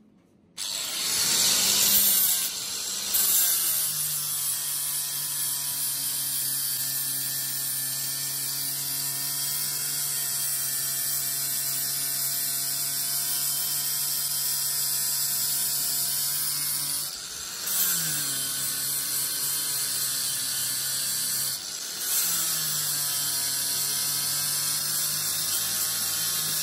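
Electric angle grinder starting about half a second in and grinding 304 stainless steel: a steady high grinding hiss over the motor's hum. The motor's pitch drops as the disc bears on the steel and rises briefly when it is eased off, twice in the second half.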